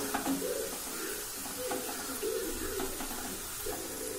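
Wheat-dough biscuit pieces sizzling steadily as they deep-fry in hot oil, with a few light knocks of a metal skimmer stirring them in the pan.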